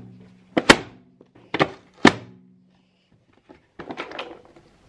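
A plastic salad chopper being handled on a worktop: three sharp thunks about a second apart, then a quick run of knocks near the end.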